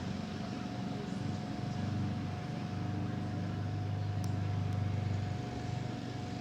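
Low rumble of road traffic, with a vehicle passing that swells about four to five seconds in, and a faint steady hum above it. The cicada itself is not singing.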